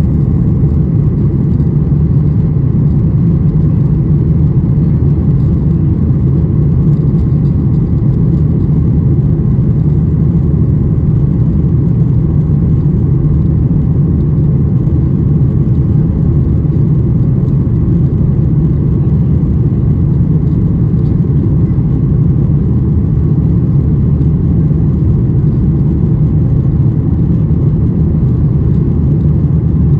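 Steady low drone of a Boeing 737-800's CFM56-7B engines and rushing air, heard inside the passenger cabin during the climb after takeoff.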